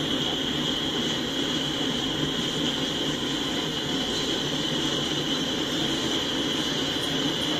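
Freight train cars rolling past: a steady rumble of steel wheels on rail with a constant high-pitched squeal over it.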